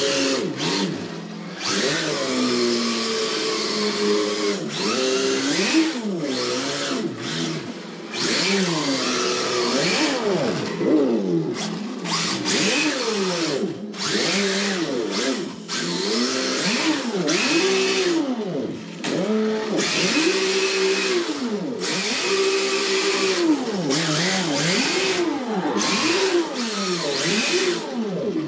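Simulated Nissan RB26 twin-turbo straight-six engine sound from the sound unit of a 1/10 Redcat Lightning RC drift car, revving up and dropping back again and again as the throttle is worked, with a few short lulls.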